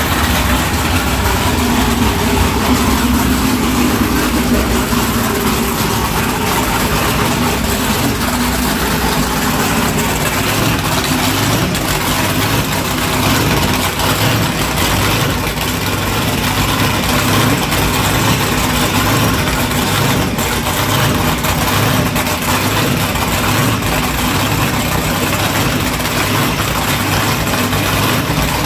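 Big Thunder Marine race boat's high-performance engine with open injector stacks idling, a loud, steady, rhythmic low rumble.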